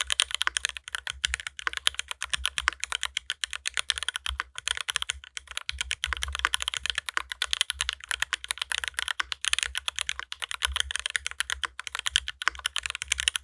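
Fast, continuous typing on a Dolinger RE mechanical keyboard with OP Black switches greased in the top housing, many keystrokes a second. The typing breaks off briefly twice near the middle.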